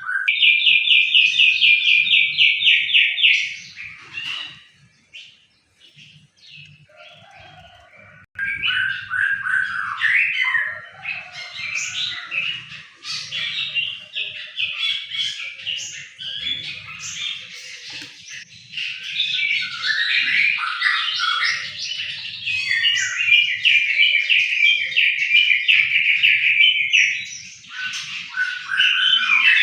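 Songbirds singing: a fast, rapid trill for the first few seconds, a quieter stretch of scattered chirps, then a long, dense run of varied chirps and trills.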